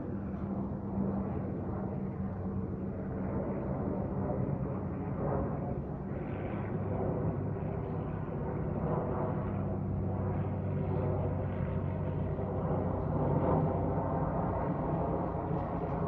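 Jet airliner flying overhead, a steady low engine rumble.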